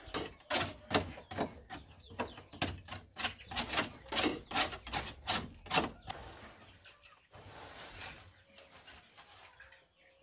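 A short broom sweeping out the floor of a wooden chicken coop in quick brushing strokes, about two or three a second. The strokes turn softer about six seconds in.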